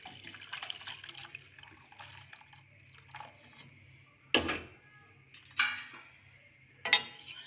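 Kitchen sounds at a cooking pot: a short hiss of liquid in the first couple of seconds, then three sharp knocks of a utensil against the pot, a little over a second apart.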